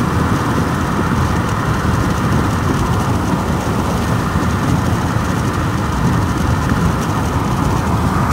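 Steady road and engine noise of a car driving, heard from inside the car.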